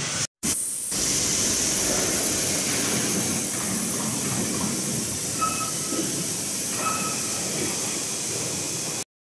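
Steady machinery noise in a metal fabrication workshop, with a faint high-pitched whine throughout and two faint short beeps in the second half. It drops out briefly just after the start and cuts off abruptly near the end.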